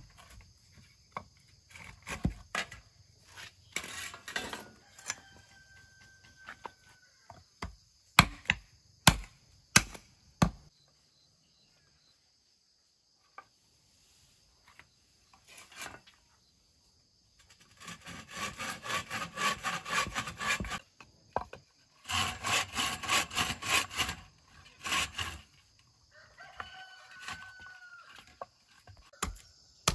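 Bow saw cutting through thin wooden poles held on a wooden block, in two bouts of quick, even strokes in the second half, with sharp wooden knocks earlier. A rooster crows twice in the background.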